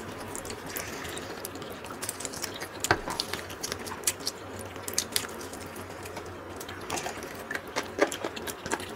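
People biting and chewing crispy KFC Spicy Smoky Crunch fried chicken: irregular crunches and wet mouth clicks, with a sharper crunch about three seconds in and another near the end.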